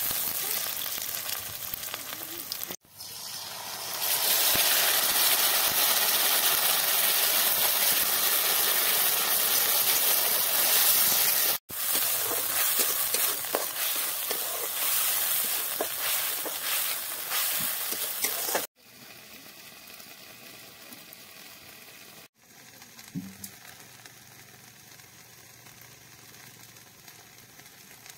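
Onions and then a spice masala sizzling in hot oil in a steel kadai, stirred and scraped with a steel spatula; the sizzle is loudest from about four seconds in. About two-thirds of the way through it cuts off, leaving a much quieter background.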